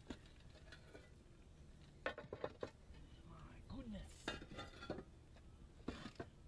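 Concrete roof tiles clinking and knocking against each other as they are handled and set down on the roof: a cluster of sharp clinks with a short ring about two seconds in, more around four seconds, and again near the end.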